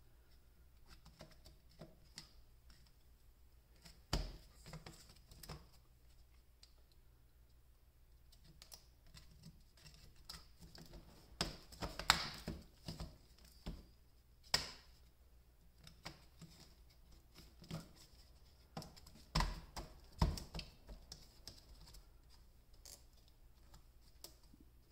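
Irregular light plastic clicks and knocks as a plastic 18650 cell-holder frame is pressed and worked down onto the cells by hand, with a handful of louder knocks spread through.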